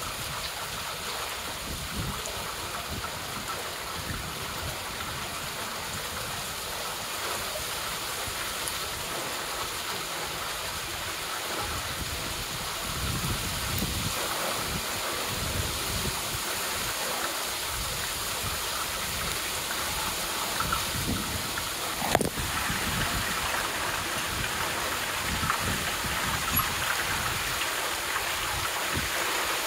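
Steady rain falling, growing a little louder about halfway through. About three-quarters of the way in comes one sharp knock as the phone recording it falls over.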